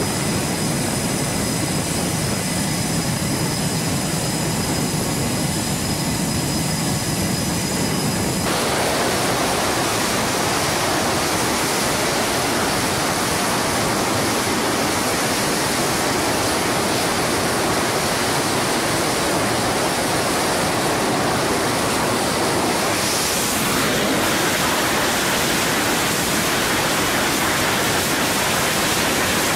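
Jet engines running on an aircraft carrier flight deck, a steady loud noise. For the first eight seconds or so a high whine sits over it, then it becomes an even rush. It grows slightly louder and brighter about six seconds before the end, as an F/A-18 runs at power on the catapult.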